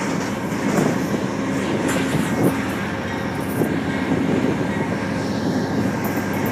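Diesel-hauled Amtrak passenger train pulling out of the station: the locomotive's engine runs steadily under the rumble of the rolling cars, with scattered clicks from the wheels on the rails.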